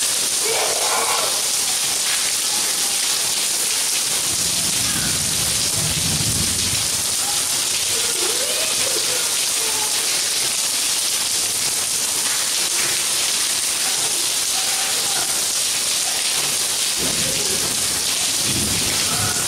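Steady rain falling on a paved courtyard, an even hiss, with two brief low rumbles, one about four to seven seconds in and one near the end.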